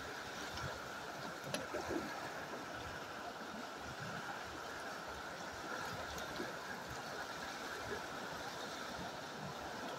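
River water rushing steadily past, with a couple of faint knocks about a second and a half in.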